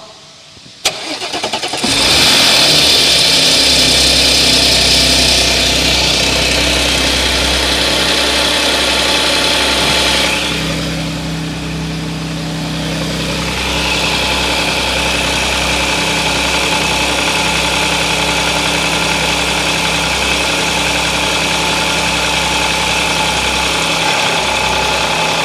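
Audi S-series car engine cold-started: the starter engages about a second in, the engine catches and runs at a high fast idle, dips briefly around ten seconds in, then settles into a steady idle. This is a cold start for an abnormal engine noise that the owner reports is most noticeable when the engine is cold.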